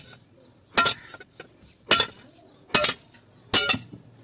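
Hammer blows on a steel leaf spring resting on an anvil, cutting it by hand, each strike ringing sharply. About five blows come roughly one a second, the last two in quick succession.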